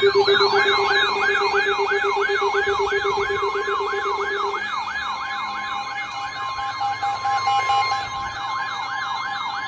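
Electronic warbling siren alert tone sweeping up and down about three times a second, cutting into a weather-radio tornado warning broadcast. A low steady tone under it stops about halfway, and a steady high tone joins about six seconds in.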